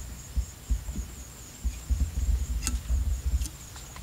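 Outdoor ambience by a pond: a steady high-pitched insect trill over irregular low rumbling thumps on the microphone, with a few faint clicks.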